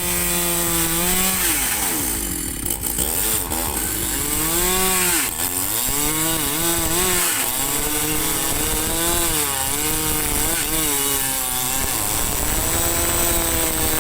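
Chainsaw running and cutting, its engine pitch rising and falling again and again as it is revved and pulled down in the cut.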